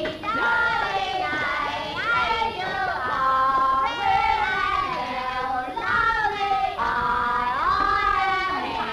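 A group of women singing a song together, with long held notes and glides between them.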